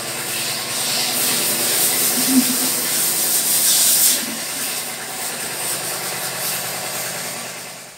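A machine running steadily with a strong hiss over a low motor hum, the hiss swelling briefly midway.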